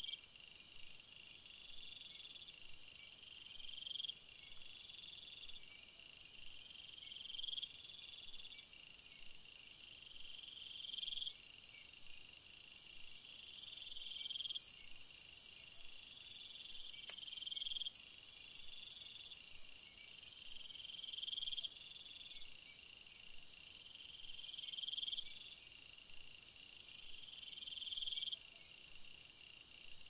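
Insects calling in chorus: a pulsed trill that swells and cuts off about every two seconds, with faster, fainter chirping higher up. A high, steady buzz joins in from about 13 to 22 seconds in.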